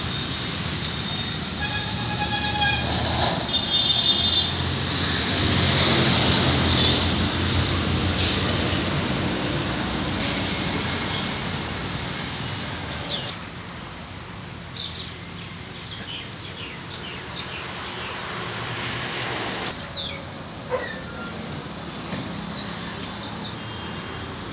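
A loud rumble of passing traffic, with short horn toots about two and four seconds in. After about thirteen seconds it dies down to a quieter background with faint short chirps.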